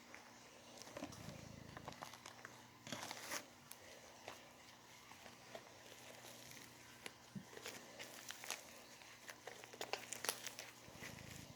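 Foamy slime being squeezed and kneaded by hand, giving faint sticky crackles and clicks in two bunches, the second near the end.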